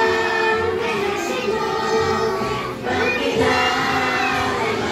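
A group of young children singing together, with music and a steady beat behind them.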